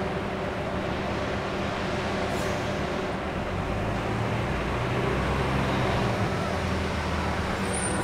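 City street traffic with a bus engine running at the curb; a heavier engine sound swells about halfway through, then eases.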